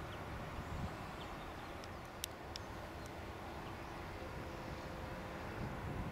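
Distant tractor with a boom-arm flail hedge-cutter running, a steady low rumble, with a few sharp clicks about two seconds in.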